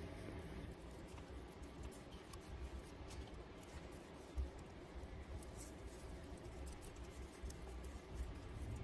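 Faint handling noise of fingers working grease into a steel spindle bearing housing: light rubbing and scraping with scattered small ticks, and one soft thump about four seconds in.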